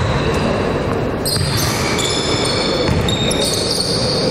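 A basketball being dribbled on a hardwood gym floor, with players' sneakers shuffling on the court. High squeaks start about a second in.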